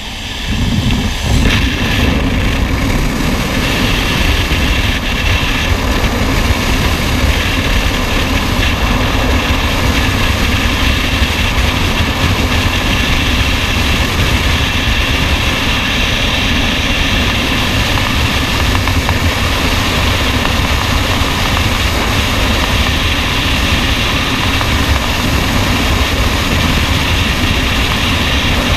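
Freefall wind rushing over a skydiver's helmet-mounted camera microphone: a loud, steady buffeting that jumps sharply louder about a second in, as the jumpers leave the aircraft and enter the airstream.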